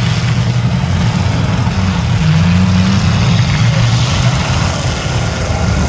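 Several demolition derby stock car engines running together in a loud, steady mass of sound, with one engine revving up about two seconds in.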